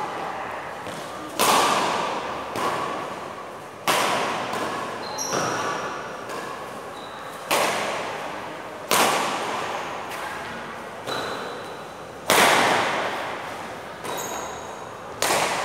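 Badminton rally: rackets hitting the shuttlecock about ten times, one sharp crack every one to two and a half seconds, each echoing in a large hall.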